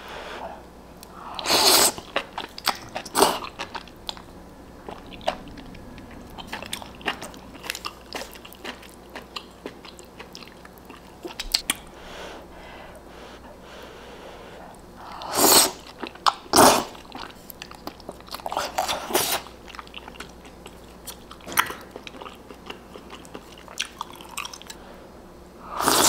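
A person slurping spicy ramen noodles out of broth and chewing, close to the microphone. Several loud slurps come about two and three seconds in and again in the second half, with quieter wet chewing and mouth clicks between them.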